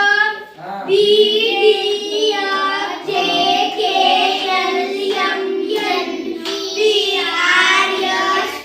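A group of children's voices chanting together in a sing-song, holding drawn-out, steady notes.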